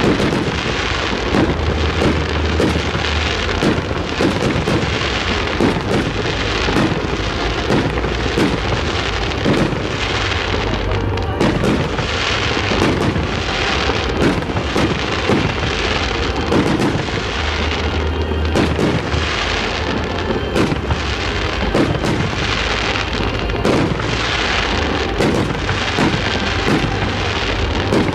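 Fireworks display: aerial shells bursting in a dense, unbroken run of bangs and crackling.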